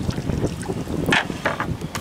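Wind rumbling on the microphone over water lapping beside the boat, with a few short splashy noises a little past the middle.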